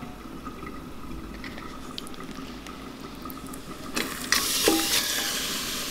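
Marinated chicken pieces tipped from a plastic bowl into an aluminium pressure cooker about four seconds in, landing with a few soft knocks and then a steady sizzling hiss. Before that it is fairly quiet, with only a faint steady hum and a few small clicks.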